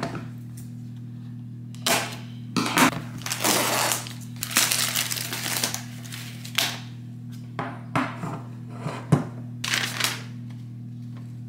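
Cardboard box and packing paper being handled: irregular rustling and scraping with a few sharp clicks and knocks as a small metal-framed mirror and its paper instruction sheet are lifted out of the box. A steady low hum runs underneath.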